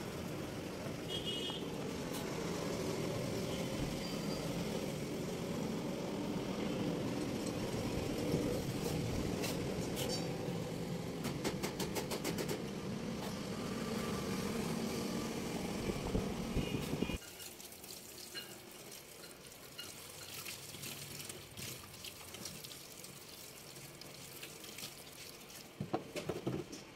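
A steady low rumble of background noise that cuts off abruptly about seventeen seconds in, leaving a quieter stretch; near the end, water splashes from a tap into a metal wash basin as a hand flicks through it.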